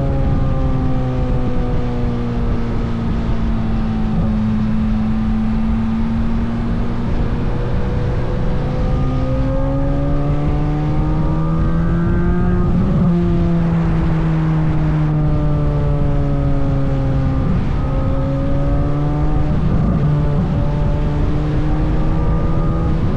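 Chevrolet Corvette C8 Z06's 5.5-litre flat-plane-crank V8 running on a trailing throttle down a hill, its pitch drifting with road speed. The note climbs, drops abruptly about halfway through, then slowly falls before rising again near the end.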